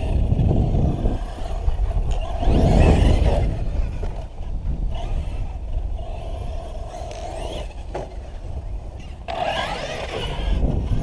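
Brushless electric motor of a Thunder Tiger eMTA Kaiser RC monster truck (2000kv, on a 6S LiPo) whining as the truck is driven, its pitch rising as it speeds up about two and a half seconds in and again near the end as it pulls a wheelie, over a heavy low rumble.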